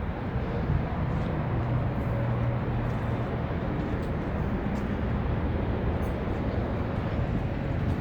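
Steady outdoor background rumble of vehicle noise with a low, even hum and no distinct events.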